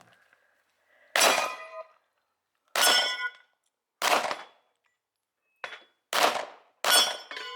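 A 9mm Glock 34 firing single shots about one to one and a half seconds apart, about six in all, each followed by the ringing clang of a hit steel target.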